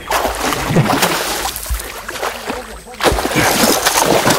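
A hooked fish thrashing and splashing in shallow water at the river's edge as it is landed. There are two bouts of splashing, the second starting about three seconds in.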